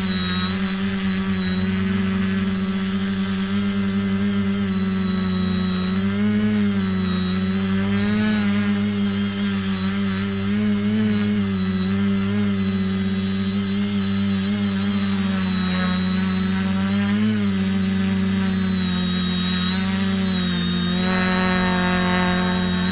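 Electric motors and propellers of an X550AIOP quadcopter humming steadily in flight, with a high whine over the hum, heard from on board. The pitch wavers up and down as the throttle changes, and the tone shifts briefly near the end.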